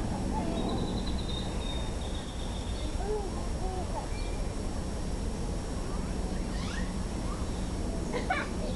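Steady low outdoor rumble with a bird's fast, high trill starting about half a second in, a few faint distant voices, and short rising chirps near the end.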